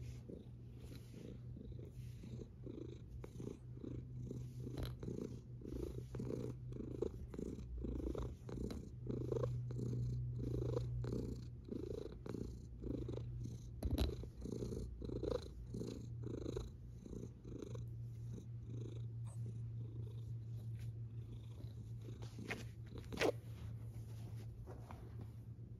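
Domestic cat purring steadily, recorded very close to the microphone, in a rhythmic pulse of about two a second. Two sharp clicks stand out, one about midway and a louder one near the end.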